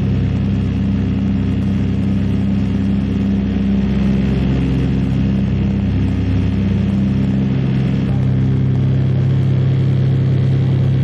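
Catalina flying boat's twin radial engines running with a steady, loud drone.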